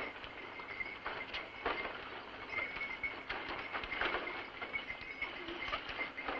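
Horse-drawn cart clattering over cobblestones: irregular knocks and rattles from hooves and wheels, with a faint steady high tone behind.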